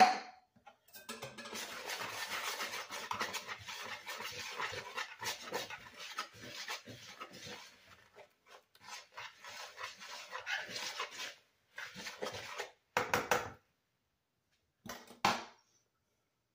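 Wire whisk stirring dry oat flour and baking powder in a plastic mixing bowl: a fast, scratchy scraping for about ten seconds. A few short clattering bursts follow near the end as the whisking stops.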